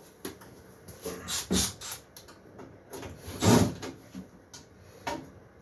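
A few scattered knocks and clunks of an LED light fixture being handled and taken apart, with a heavier thud about three and a half seconds in.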